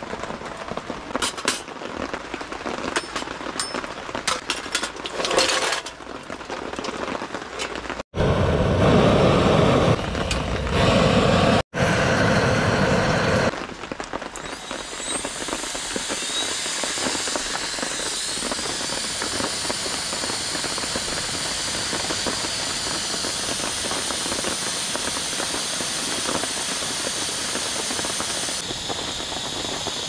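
Rain pattering with scattered ticks and crackles, then a loud rushing noise for several seconds. About halfway through, a small battery-powered air blower (InOut T-23 air pump gun) spins up with a rising whine and then runs steadily with a high hiss, blowing onto lit charcoal.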